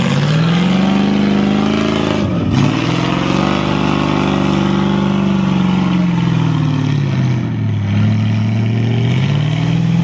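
Off-road 4x4 engine revving hard under load, its pitch rising and falling: a sharp dip about two and a half seconds in, a long high stretch, a sag near eight seconds, then climbing again near the end.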